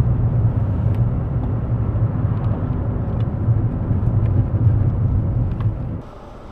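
Car driving, heard from inside the cabin: a steady low rumble of engine and road noise with a few faint light clicks. About six seconds in, the sound drops suddenly to a much quieter hiss.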